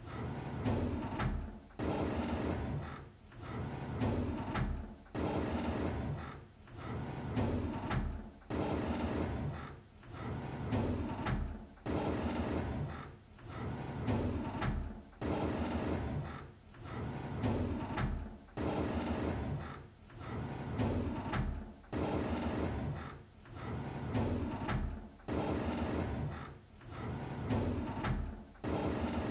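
A drawer sliding open, repeated over and over about every two seconds. Each pull starts sharply and fades out with a grainy sliding noise.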